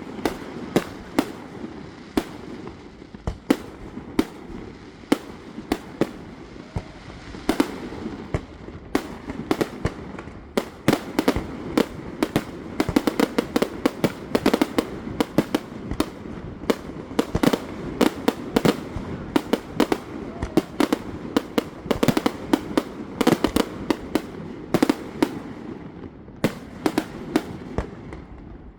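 Fireworks display: a rapid, irregular series of sharp bangs and crackles over a continuous rumble, growing denser after the first several seconds and thinning out near the end.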